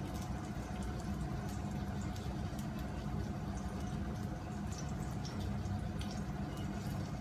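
Salmon fillet frying in oil in a frying pan, sizzling steadily with scattered small pops and crackles. A steady low hum runs underneath.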